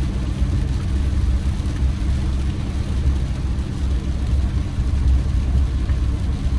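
Steady low engine and road rumble inside a campervan's cabin while driving along.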